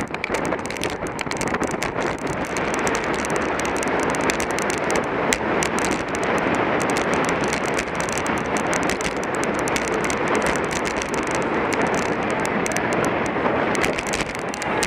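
Steady wind rushing over the microphone of a bicycle on the move, with tyre and road noise underneath and many scattered small clicks.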